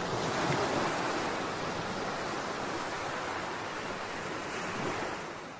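Ocean surf: a steady rushing of breaking waves that fades out near the end.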